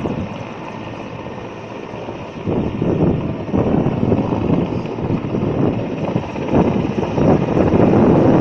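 Large helicopter's rotor and engines running as it lifts off, a dense continuous din that grows louder about two and a half seconds in and again near the end.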